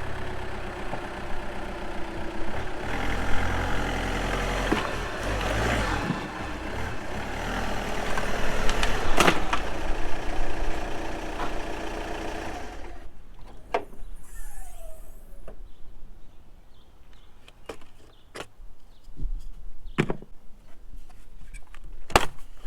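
Volkswagen 2.0 TDI diesel engine running, with a low rumble. It stops abruptly about halfway through, leaving a few scattered clicks and knocks.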